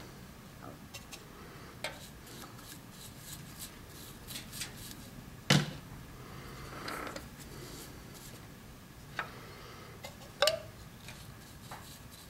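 Scattered light clicks and taps from handling the brush and work while shellac is brushed on, with two sharper knocks about five and a half and ten and a half seconds in.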